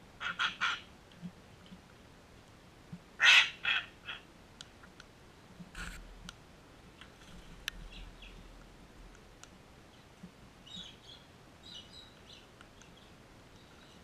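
Sulphur-crested cockatoos giving short, harsh squawks in quick bunches: three right at the start, the loudest pair a little over three seconds in, and fainter ones near the end. Between the calls come faint ticks of beaks pecking in the grass.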